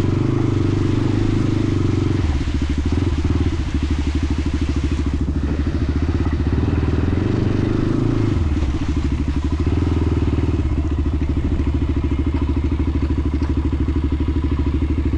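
Honda TRX400EX ATV's single-cylinder four-stroke engine running. It holds higher revs for the first couple of seconds, then drops to a slow, pulsing chug, picks up again briefly about halfway through, and settles back to a slow, even chug.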